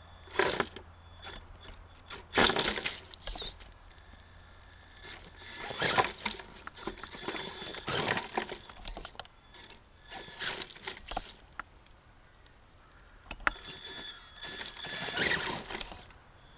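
Axial SCX-10 scale RC crawler climbing a rocky dirt slope in short bursts, its electric motor and gears whining as the tyres scrabble and crunch over dirt and stones.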